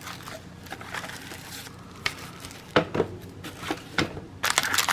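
Plastic packaging being handled: scattered rustles and small clicks, turning into louder continuous crinkling near the end.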